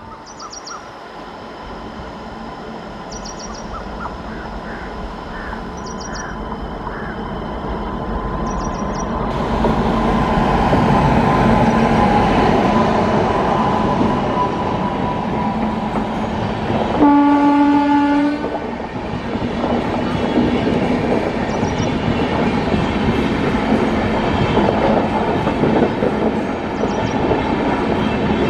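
Passenger train hauled by an electric locomotive approaches and passes close by at speed, its running noise building over the first ten seconds into a steady heavy rumble of wheels on rail. About seventeen seconds in a single horn blast of about a second and a half sounds over the passing coaches.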